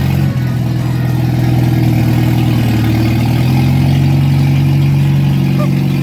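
1989 Jeep Wrangler's engine running steadily, its speed picking up slightly a little past halfway.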